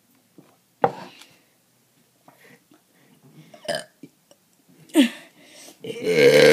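A girl burping, with a few short sounds earlier and then a long, low, drawn-out burp that begins near the end.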